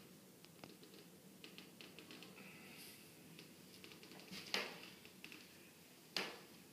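Light scattered ticks and taps from handling a sign-writer's brush and mahl stick, with two sharper clicks about four and a half and six seconds in.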